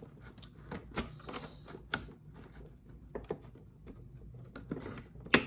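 Irregular small clicks and taps of hands handling a toy-car package, with a sharp click just before the end.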